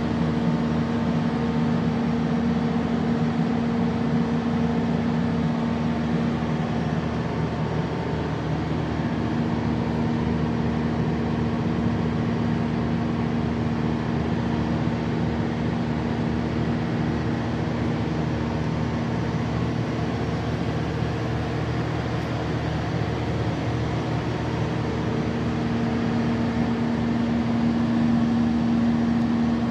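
Large Mitsubishi diesel engine of a Kohler generator set running at a steady speed, an even hum that holds one pitch and grows a little louder near the end.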